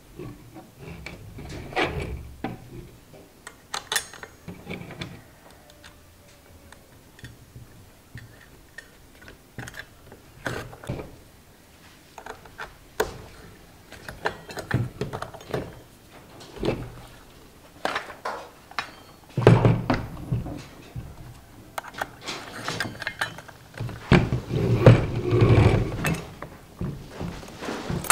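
Hands working a toothed metal saw blade and its retaining nut with an L-shaped wrench on a plastic string-trimmer head: scattered metal clicks, clinks and knocks. Louder bursts of knocking and rattling come about two-thirds of the way through and again near the end.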